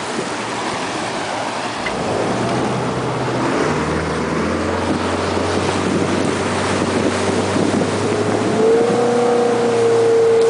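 Motorboat engine running under load while towing, its pitch rising a little as the boat speeds up and then holding steady and growing louder near the end, under constant rushing wind and water noise on the microphone.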